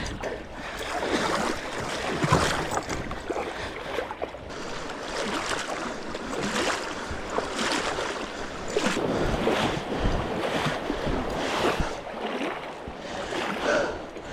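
Kayak paddling: paddle strokes splashing and water washing around the hull, with some wind on the microphone.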